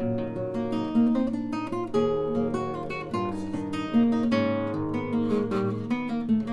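Acoustic guitar strumming chords, with ringing notes and stronger accented strums about a second apart.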